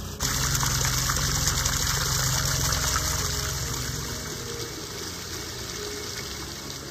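The Wolfbach, a small forest stream, splashing over a low mossy rock step into a shallow pool: a steady rush of water that comes in abruptly right at the start and grows somewhat quieter after about four seconds.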